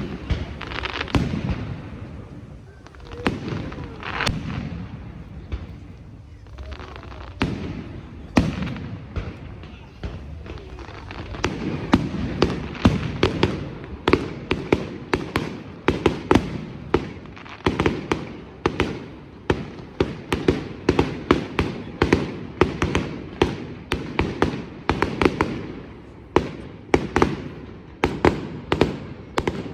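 Fireworks display: sharp bangs with ringing tails, scattered at first, then about a third of the way in quickening into a fast run of roughly two bangs a second.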